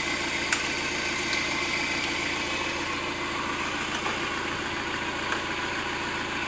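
Citroën Berlingo engine idling steadily with the bonnet open, warming up. Two short clicks sound over it, about half a second in and again about five seconds in.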